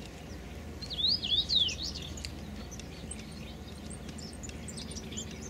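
Birds calling: a quick run of sliding, zigzagging chirps about a second in, then scattered fainter chirps over steady low background noise.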